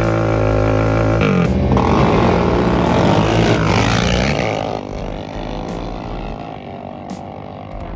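Sport ATV engine held at a steady high rev, then about a second in it breaks into hard acceleration as racing quads launch and pass close by. The engine sound fades as they run away down the strip after about five seconds.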